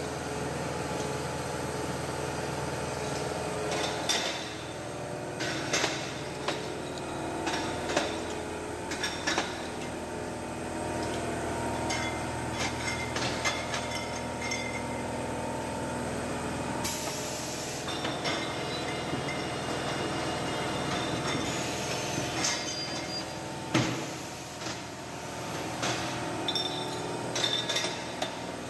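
Six-head beer bottle filler being worked: brown glass bottles clink and knock as they are loaded under the filling heads and taken off, over a steady machine hum. A short burst of hiss comes about two-thirds of the way through.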